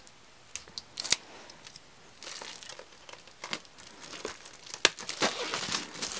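Plastic shrink wrap being torn open and peeled off a hardcover album, crinkling, with a few sharp crackles, denser from about two seconds in.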